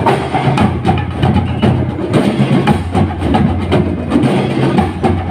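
Drum and lyre corps playing a marching tune, with drums beating a steady rhythm.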